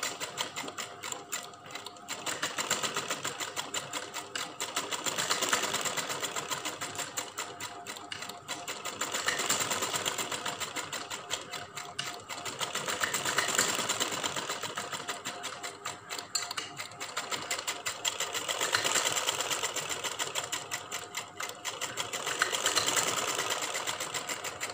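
Domestic sewing machine stitching piping onto a fabric hem: a fast, continuous rattle of needle strokes that swells louder and softer in waves every few seconds as the machine speeds up and eases off.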